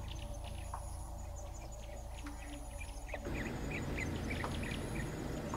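Faint, scattered bird chirps over a steady low hum. About three seconds in, a steady hiss comes up beneath them.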